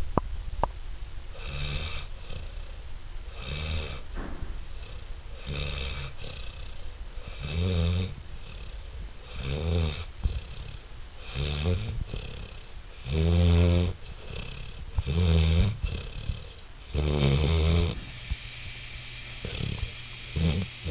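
Six-month-old St. Bernard puppy snoring: a low snore about every two seconds, each lasting roughly half a second to a second, the later snores louder.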